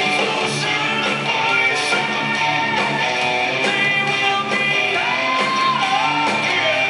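Live hard rock band playing through a PA: electric guitars, bass and drums, with a singer's voice holding a note about five seconds in.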